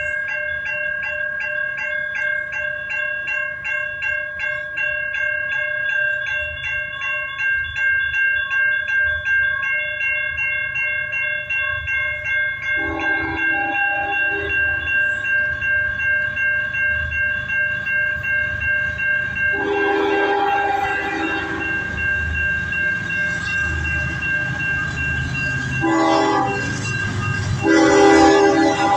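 Railroad crossing bell ringing steadily while an approaching Canadian National freight locomotive sounds its air horn in the long-long-short-long grade-crossing pattern, over a low rumble from the train. The horn starts about halfway in, and the last long blast is still sounding at the end.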